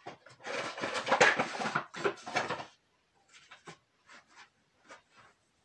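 Fishing tackle being handled: a rustling, rattling clatter for about two seconds as floats are pulled out, then a few light clicks.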